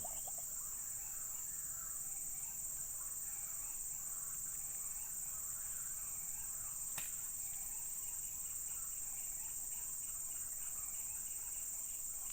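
Insects, crickets or cicadas, keeping up a steady high-pitched drone, with faint scattered chirps beneath and a single click about seven seconds in.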